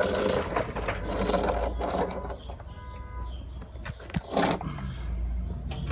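Scraping and rubbing of a hand gripping and twisting at an oil filter that is stuck tight and will not come loose.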